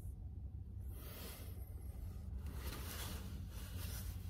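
Blankets and clothing rustling as someone shifts under the covers, in soft irregular swishes over a steady low hum.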